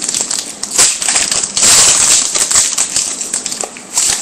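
A foil trading-card pack being torn open, its wrapper crinkling, with sharp clicks of cards being handled. It is loudest for about a second in the middle.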